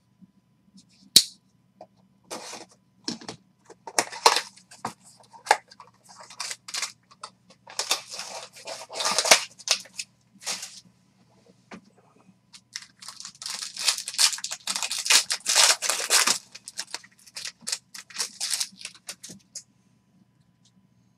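Trading-card packaging being opened by hand: a sharp snap about a second in, then irregular crinkling and tearing of a foil card-pack wrapper, heaviest in two long stretches.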